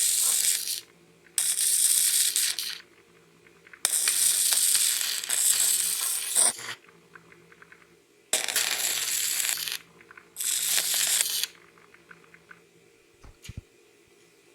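Stick-welding arc crackling and sizzling in five separate bursts of about one to three seconds each, with short pauses between.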